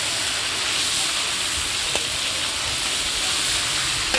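Sliced pork and garlic sizzling steadily in hot oil in a large wok while being stirred, with one sharp tap about two seconds in.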